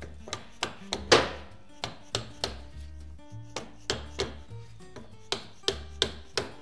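Red plastic-headed mallet tapping a torch-heated bearing home on a 1958 VW split-case swing-axle differential. It gives about a dozen sharp taps in quick runs of two or three, the hardest about a second in.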